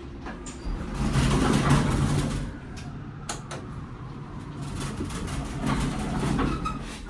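Dover hydraulic elevator running, with rumbling and rattling shaft noise and scattered knocks. It swells loudest about a second in and again near the end. These are the odd shaft noises that make the ride sound sketchy.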